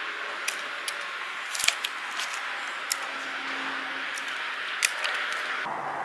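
Hand-held bypass pruning shears snipping thin pomegranate branches: several sharp snips, the loudest few close together about a second and a half in, over a steady background hiss.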